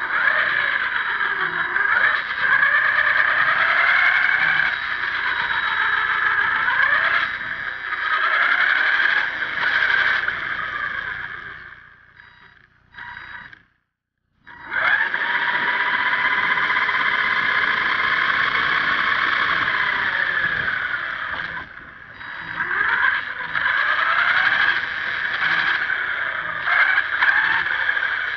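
1/10-scale HSP RC monster truck driving, its motor and drivetrain whining with a pitch that rises and falls as the throttle changes. About halfway through the sound fades out, stops for about a second, then picks up again at full level.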